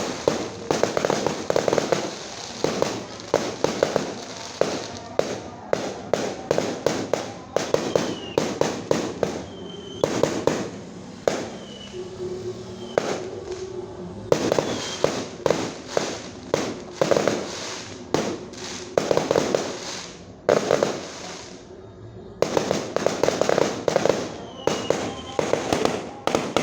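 Fireworks going off in rapid volleys of sharp bangs and crackles, with brief lulls about halfway through and again near the end.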